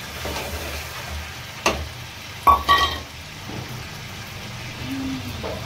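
Metal spatula stirring chicken in masala in a black kadhai, over a low steady sizzle of frying. The spatula strikes the pan sharply twice, about a second and a half in and again a second later, and the second strike rings briefly.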